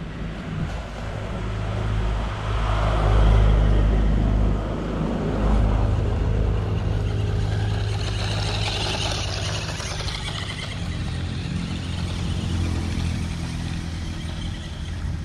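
Small electric RC monster truck driving over gravel, its motor whining. A steady low rumble of wind on the microphone runs underneath.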